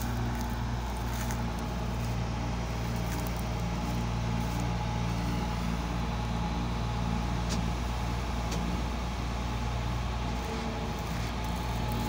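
Laverda 3890 combine harvester running steadily: an even engine drone with machinery noise, holding the same pitch and level throughout.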